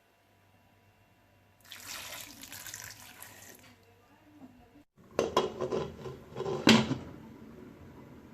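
Kitchen tap running for about two seconds. Then, after a cut, water splashing and dishes clattering in a sink, with the loudest knock near the end.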